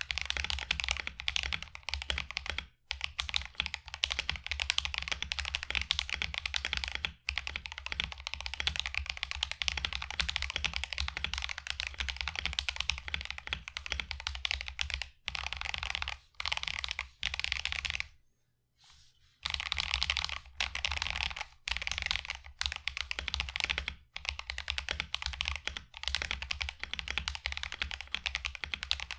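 Fast, continuous typing on a mechanical keyboard fitted with stock, unlubricated Akko V3 Cream Blue tactile switches, keystrokes on the deeper, louder side as they bottom out, with a little of the ticking typical of stock tactile switches. The typing stops briefly a few times, with one pause of about a second around two-thirds of the way through.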